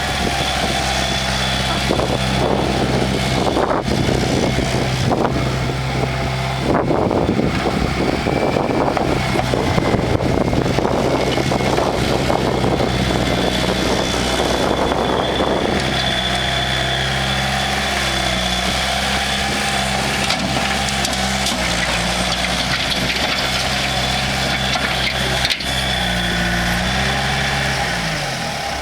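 2007 Bobcat S330 skid steer loader's diesel engine running steadily, with a rougher, louder noise over it for about the first half. Near the end the engine pitch dips briefly.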